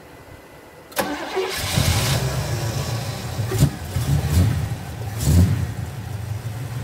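1971 Oldsmobile 98's 455 V8 starting about a second in: it cranks briefly and catches quickly, then runs with two brief revs.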